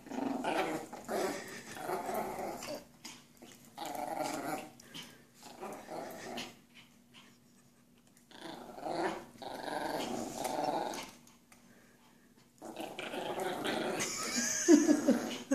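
Toy Yorkshire terriers growling in play while tugging a toy between them, in repeated bouts of a second or two with short pauses, and a louder outburst near the end.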